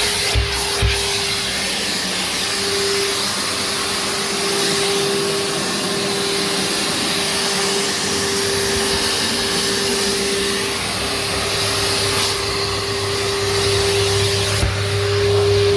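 Numatic NTD570 vacuum cleaner running steadily, a constant hum riding over its rushing airflow, with a couple of low knocks about a second in.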